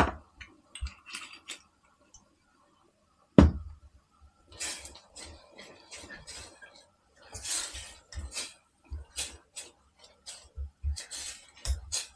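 A metal utensil knocking and scraping in a cast-iron Dutch oven as the pot's contents are stirred: a sharp knock at the start, a louder one about three and a half seconds in, then a run of irregular scrapes and clinks.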